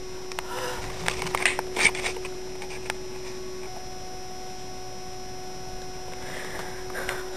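Steady electrical hum with faint rustling and a few sharp clicks in the first couple of seconds, then only the hum.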